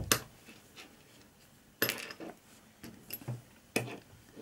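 A few sharp clicks and taps of a small screwdriver and hard model parts being handled while fitting a tiny screw, spaced irregularly, with a small cluster about halfway through.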